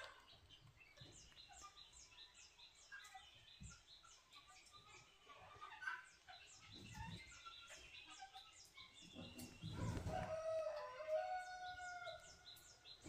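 A rooster crowing once near the end, a drawn-out call of about two seconds, over a small bird chirping rapidly and repeatedly, about three short high chirps a second. Soft rustles and thumps of the baby monkey moving on the bedding.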